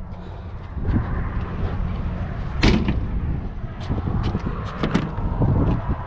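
A few sharp knocks and clunks, the loudest about two and a half seconds in and several more close together near the end, over a steady low rumble.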